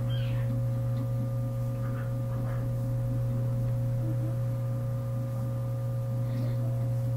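A steady low hum with several fainter steady higher tones over it, with a few faint brief rustles.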